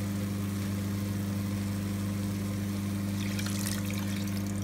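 A steady low hum runs throughout. Starting about three seconds in, water is poured from a bowl into a pan of fried spice paste, giving a soft pouring sound.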